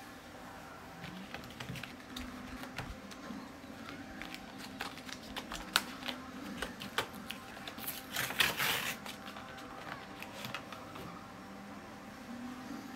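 A clear phone case's plastic and cardboard packaging being handled and opened: scattered clicks and taps, with a short burst of rustling about eight seconds in.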